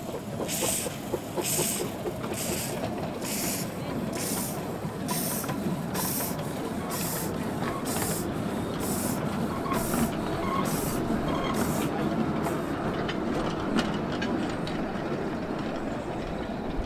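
Small narrow-gauge steam locomotive pulling away with a passenger carriage, its exhaust beating out a slow, steady rhythm of sharp hissing chuffs, a little under one a second and gradually quickening. Beneath them is a low rumble of wheels on the track. The chuffs fade out about two-thirds of the way through as the train moves off.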